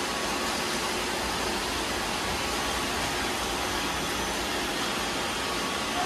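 Several robot vacuums running together: a steady whirring hiss of their suction fans and brushes, with faint steady tones.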